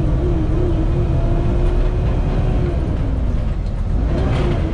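Kenworth T680 semi truck heard from inside the cab while driving: a steady low engine and road rumble with a droning tone that wavers and dips in pitch about three seconds in. A short, sharper noise comes near the end.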